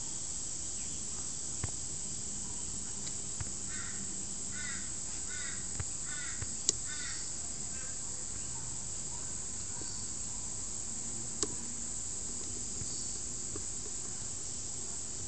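Steady hiss with a run of about six short, repeated chirping calls in the middle, roughly two a second, and a few sharp clicks.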